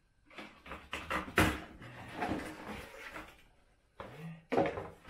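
Cardboard and packing paper rustling and crinkling as parts are unpacked from a plastic poly cart tub. Irregular knocks of parts and packaging against the tub run through it, and the sharpest knock comes about a second and a half in.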